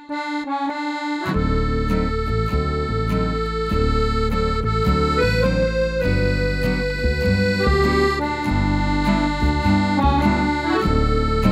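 Instrumental intro music. It opens with a few single notes, then from about a second in plays a fuller tune of long held melody notes over a moving bass and chords.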